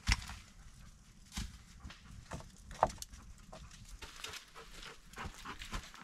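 Irregular knocks, snaps and rustles of sticks and firewood being handled beside a small wood fire crackling in a stone fire pit.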